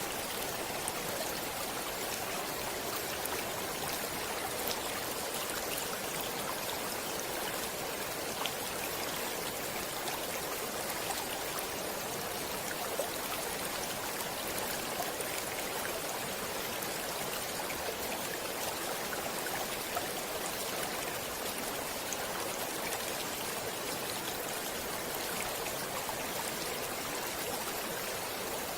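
Stream water flowing steadily: a continuous rushing sound with small splashes scattered through it.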